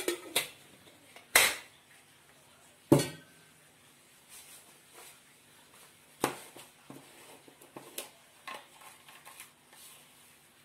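Metal kitchen vessels being handled and set down on the counter: a few sharp clanks in the first three seconds, then lighter knocks and clinks.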